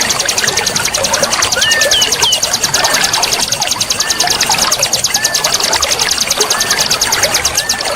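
Wild birds singing, with short whistled notes that curve up and down about once a second, over a fast, steady, high-pitched pulsing trill and the constant rush of flowing water.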